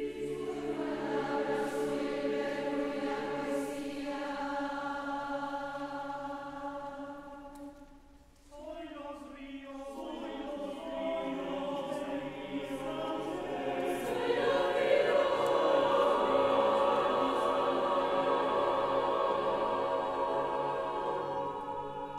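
Massed a cappella choir of several hundred voices singing sustained chords. The sound dies away almost to nothing about eight seconds in, the voices re-enter, and they build to a louder, fuller passage in the second half.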